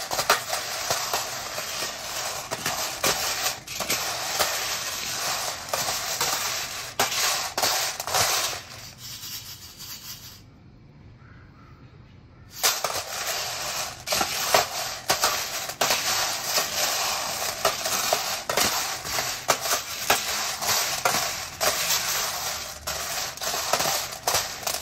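Freshly roasted coffee beans stirred and tossed in a stainless steel tray with a wire skimmer, a dense rattle of beans clattering and scraping on the metal as they are agitated to cool after the roast. The stirring stops for about four seconds around a third of the way in, then starts again.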